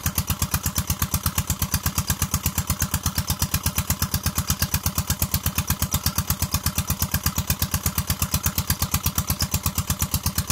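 An engine running steadily at idle, a rapid, perfectly even thudding beat of about six pulses a second.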